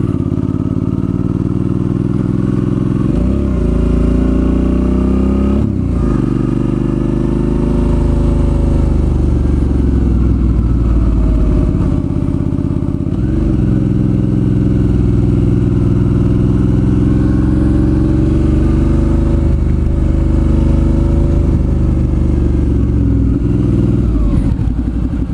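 Suzuki V-Strom 650's 645 cc V-twin engine running under way, its pitch dropping and climbing again about three times as the revs change.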